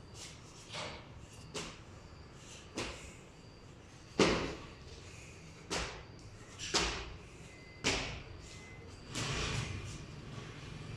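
A child's feet landing on concrete stair steps: seven sharp thuds about a second apart, the loudest about four seconds in, then a brief scuffing near the end.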